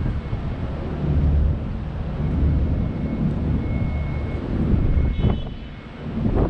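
Wind buffeting the camera microphone in gusts, a heavy low rumble that eases briefly near the end.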